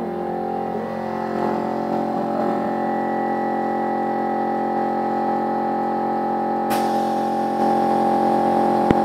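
Plastic sheet thermoforming machine running with a steady hum of several held tones, with a sharp click about two-thirds of the way through and a short knock near the end.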